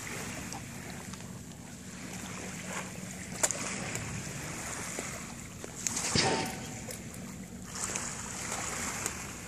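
Small waves washing on a pebble shore with wind on the microphone, under a steady low hum. There is a sharp click about three and a half seconds in and a brief louder sound about six seconds in.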